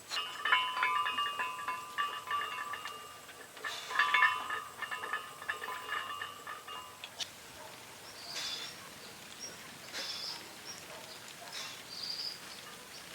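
Birds calling: two bursts of chattering calls in the first seven seconds, then short high chirps scattered through the later half.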